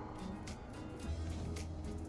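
Quiet background music with faint steady low notes.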